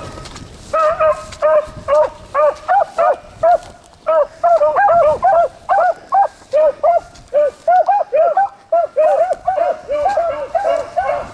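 A pack of beagles baying in short, quick barks, several a second, with more hounds joining and overlapping at different pitches from about four seconds in: the hounds giving tongue as they run a rabbit's track.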